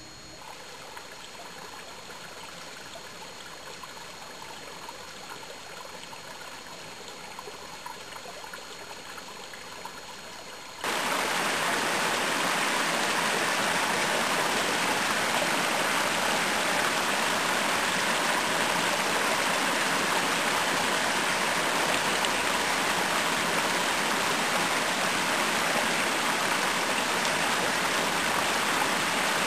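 Creek water rushing over rocks: faint and steady at first, then about eleven seconds in it jumps abruptly to a loud, even rush that holds steady.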